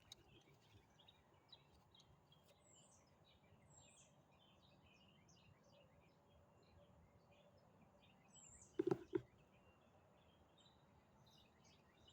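Faint bird chirps and short whistled calls in the background throughout. About nine seconds in, two or three quick dull knocks sound close by, louder than anything else.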